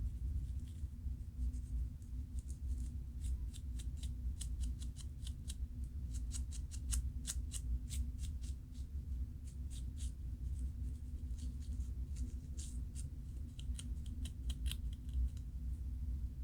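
Dandruff being scratched loose from the scalp: a rapid run of short, dry scratches, thickest in the middle, over a steady low hum.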